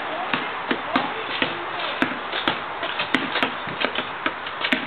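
Basketball bouncing on asphalt: repeated dribbles, several sharp bounces a second.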